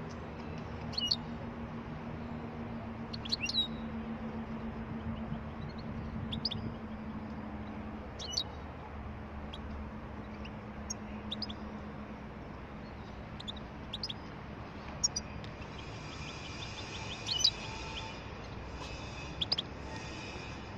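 Caged European goldfinch giving short, sharp high calls every second or two, then breaking into a rapid twittering song near the end. A low steady hum runs underneath for the first half.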